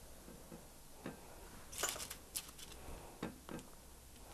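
A few faint taps and clicks from a hand placing small decorations onto a cookie on a plate, a small cluster about two seconds in, over quiet room tone.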